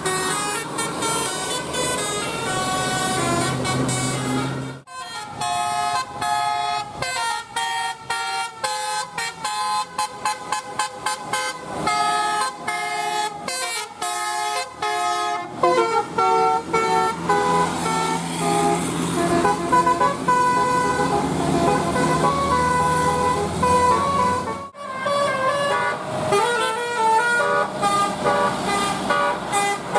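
Bus 'telolet' horns: multi-tone air horns playing quick stepping melodies, with rapid short notes through the middle and longer held tones elsewhere. The sound breaks off abruptly twice, about five seconds in and near twenty-five seconds.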